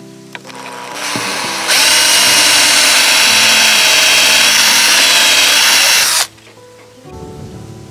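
Cordless drill-driver bit running into a wooden board: a steady motor whine starts a little under two seconds in, lasts about four and a half seconds and cuts off abruptly.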